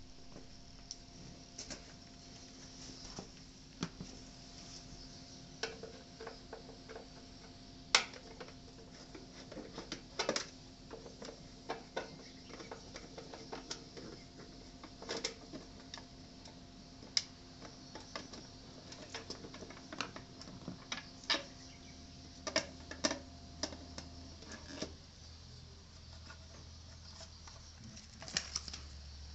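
Hand work on a Suzuki Birdie 50cc moped: irregular clicks and light knocks of tools and parts being handled, the loudest about eight seconds in. Under them runs a faint steady hum that stops about three-quarters of the way through.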